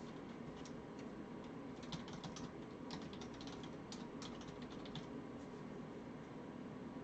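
Typing on a computer keyboard: quick runs of key clicks, busiest from about two to five seconds in, over a low steady room hum.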